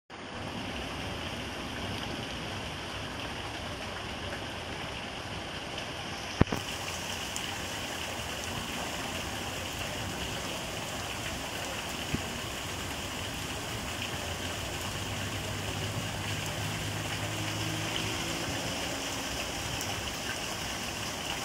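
Heavy rain pouring onto flooded ground and standing water, a steady dense hiss and patter. A single sharp tap about six seconds in, and a fainter one about twelve seconds in.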